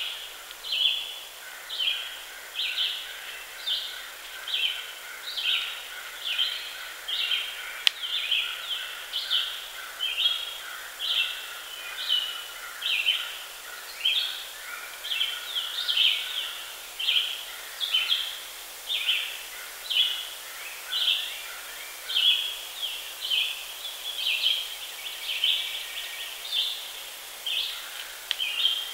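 A chorus of animal calls: short high calls repeat in an even rhythm, about three every two seconds, over a steady lower trill that drops out for a few seconds near the end. There is a single sharp click about eight seconds in.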